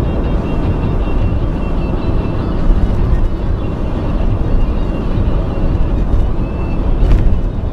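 Vehicle being driven, a steady rumble of road and engine noise, with a brief louder moment near the end.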